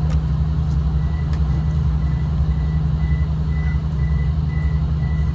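Steady low rumble of a V/Line train's engine, heard on board, with a high electronic beep repeating in short, rapid pulses from about a second in.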